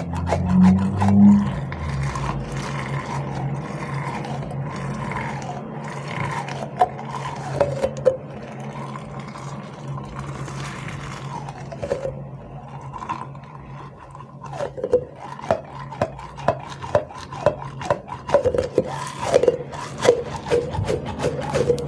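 A clear rubbery squishy stress ball filled with teal glitter being squeezed and rubbed by hand, giving short rubbery squeaks and rubbing sounds. The squeaks come thicker in the second half, about two a second.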